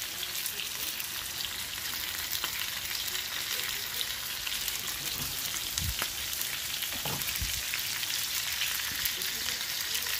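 Sliced onions and bacon sizzling and crackling steadily in a skillet. A spatula stirs them, knocking against the pan a couple of times past the middle.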